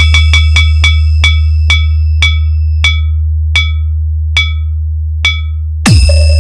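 Synthesized bass test tone for a DJ system sound check: a deep steady bass drone with electronic bell-like pings over it that come further and further apart. About six seconds in, a quick falling sweep restarts the bass with a steady higher tone added.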